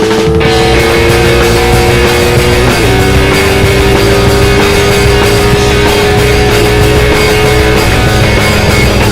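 Rock music with electric guitar: long held guitar notes that bend about three seconds in, over a steady loud backing.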